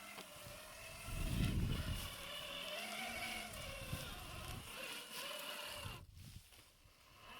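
Electric motor and geared drivetrain of a 1/7-scale Rlaarlo JK07PRO RC trail truck whining, the pitch rising and falling with the throttle. A low rumble comes in about a second in, and the whine drops away briefly near the end.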